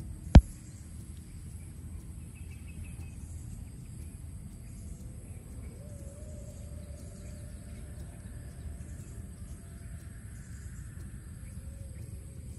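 Outdoor ambience: insects buzzing steadily at a high pitch and a few faint bird chirps over a low steady rumble, with one loud, sharp click just after the start.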